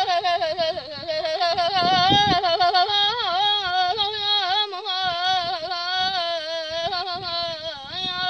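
A boy singing an Azerbaijani folk song, holding one long wordless high vocal line with quick wavering ornaments and no accompaniment.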